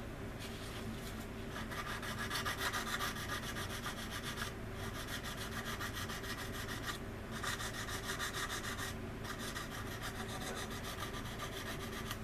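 Sanding stick rubbed back and forth in quick, steady strokes over a resin model wing's leading edge, with a few short pauses. The fine resin dust it raises fills in the wing seam.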